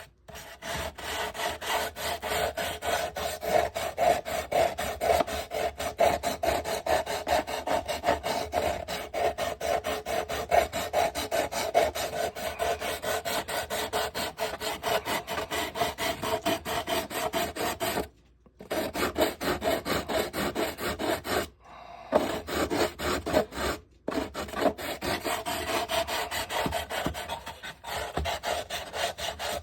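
Coarse 80-grit sandpaper rubbed by hand over a boat hull in quick, continuous strokes, knocking down the rough edges. The rubbing stops briefly three times in the second half.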